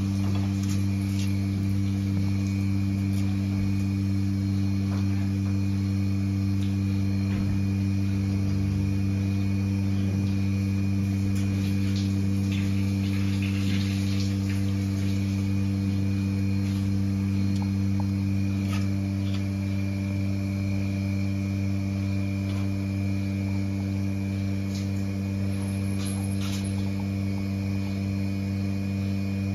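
Steady low electrical hum, with a few faint clicks and knocks scattered through it.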